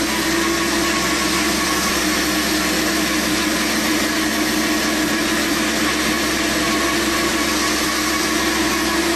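Turbocharged Kia Picanto engine held at a steady 2,000 rpm under load on a dynamometer for load mapping: a steady drone and hiss with a constant hum, its pitch unchanging.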